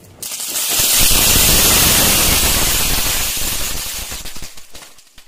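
Ground firework burning: a loud hissing spray of sparks with dense crackling, starting just after ignition, strongest for a few seconds, then dying away near the end.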